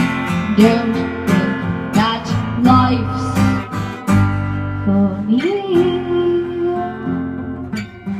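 Music: strummed acoustic guitar playing the instrumental passage of a song, with regular strokes and chords ringing on, and one note gliding upward about halfway through.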